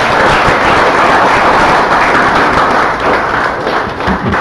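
A roomful of people applauding, loud and steady.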